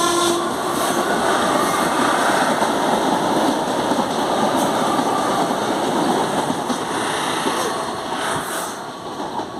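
CPTM Série 2070 Alstom electric multiple unit pulling away, its traction motors growling over the dense rumble of wheels on rail. The noise eases off near the end as the train draws away.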